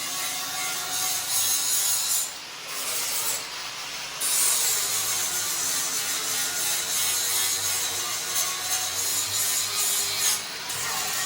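Steady rasping noise of metalworking on a steel chassis, breaking off briefly three times: a little after two seconds in, around three and a half seconds in, and near the end.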